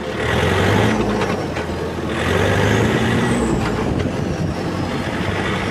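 Yanmar 1160SR turbo-diesel tractor engine running as the tractor drives, heard from the driver's seat. It swells louder twice, near the start and again about two seconds in.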